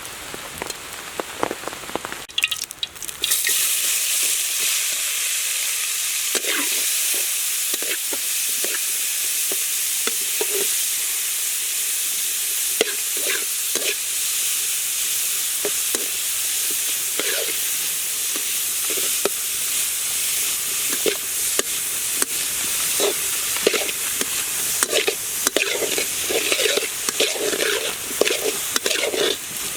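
Food frying in hot oil: a loud sizzle starts suddenly about three seconds in, as the food goes into the pan, and runs on steadily, with the short clicks and scrapes of stirring growing more frequent toward the end.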